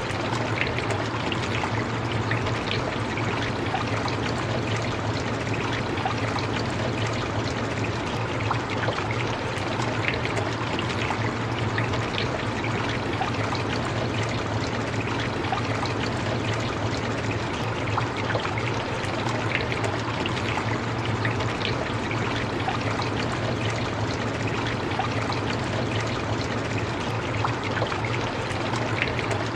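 Steady rain: an even hiss with individual drops ticking through it.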